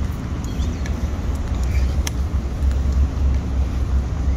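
Steady low rumble of city street traffic, with a few faint ticks.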